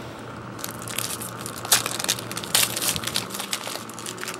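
Foil trading-card pack wrapper being torn open and crinkled in the hands: a run of irregular crackling rustles starting about half a second in.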